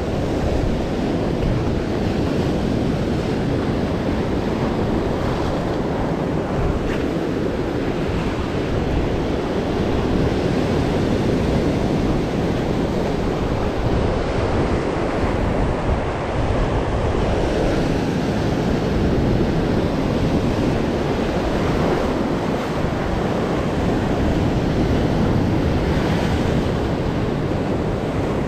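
Heavy sea surf breaking and washing over shore rocks in a steady, unbroken rush.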